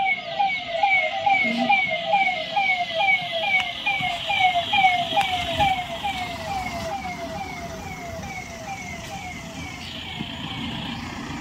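Police convoy vehicle's electronic siren on a fast yelp, a falling sweep repeating about three times a second, fading away about two-thirds of the way through as it moves off. Vehicle engines and traffic noise carry on beneath it.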